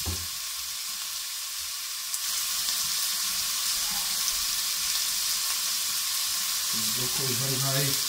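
Oil with fried chili paste and garlic sizzling in a stainless steel pot under freshly added thin strips of raw chicken. The sizzle gets louder about two seconds in.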